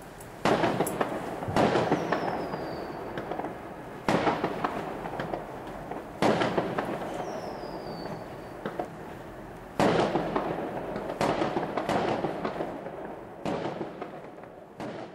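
Fireworks going off: about seven sharp bangs, each followed by a stretch of crackling, with a high whistle falling in pitch heard twice.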